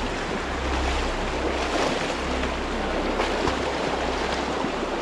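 Steady rushing of river water, with wind rumbling on the microphone.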